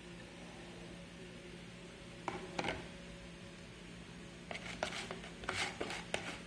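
Quiet room tone with a steady low hum, broken by a couple of light clicks a little past two seconds in and a run of sharper clicks and knocks near the end.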